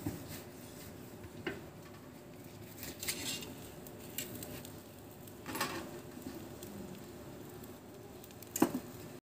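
A paratha cooking on a griddle over a wood fire: faint, steady sizzling, broken by a few scattered clicks and soft knocks.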